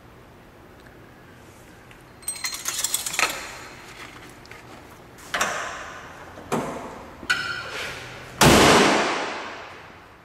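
Metal clinks and clunks under the pickup's hood, then the steel hood of the 2001 GMC Sonoma slammed shut about eight and a half seconds in, the loudest sound, with a ringing decay.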